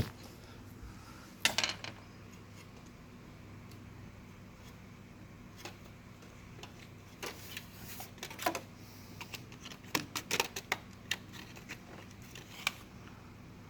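Scattered light clicks and clatter from hands and tools being moved about in a car's engine bay, over a faint steady low hum.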